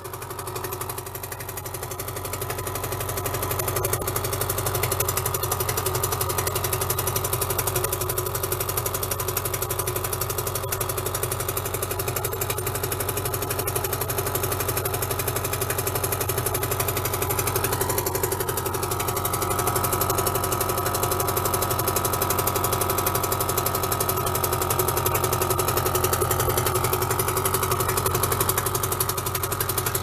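1977 British Seagull 40+ Mk II single-cylinder two-stroke outboard running steadily in a test barrel, growing louder over the first few seconds and then holding an even note.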